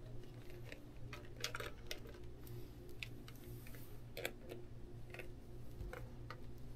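Scattered light clicks and taps of a handheld digital multimeter being picked up and set down and its test leads handled on a cloth-covered table, under a faint steady hum.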